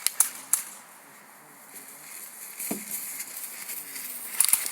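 Airsoft guns firing: two sharp snapping shots near the start, then a quick run of several shots near the end.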